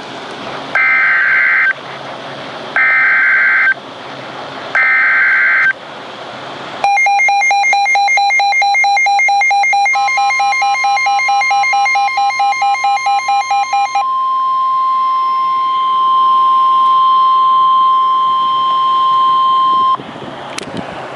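Emergency Alert System SAME header: three one-second bursts of screechy digital data tones with short gaps, then the alert tone: a pulsing, buzzy alarm from about seven seconds in, joined about ten seconds in by a steady single-pitch weather-radio alarm tone that holds for about ten seconds before cutting off. It is the start of a National Weather Service severe thunderstorm warning broadcast.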